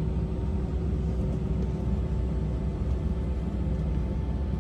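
Steady low rumble inside an airliner cabin before takeoff, with a faint steady hum over it.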